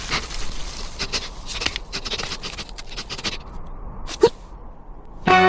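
Cockatiel clicking and scraping about, then giving one short chirp about four seconds in. Music starts just at the end.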